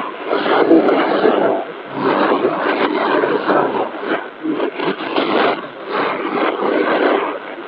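Qodosen SR-286 radio's loudspeaker playing a shortwave AM station on 4750 kHz in the 60-metre band. The audio is cut off above about 4 kHz and keeps rising and falling in strength.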